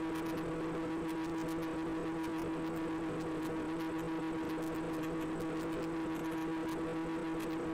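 Steady, even hum of a Finwinghobby Transformer Wing F44's electric motor and propeller at constant throttle in cruising flight, heard through the aircraft's onboard camera, with faint crackles over it.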